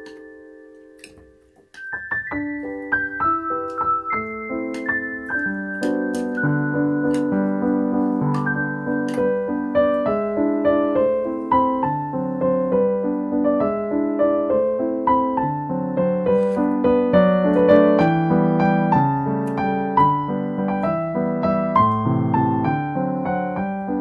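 Background piano music: a phrase dies away at first, then about two seconds in the piano starts up again with a steady flow of notes.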